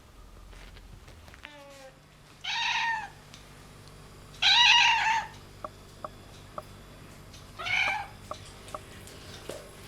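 Domestic cat meowing three times, each meow lasting under a second, the middle one the loudest, with a few faint clicks in between.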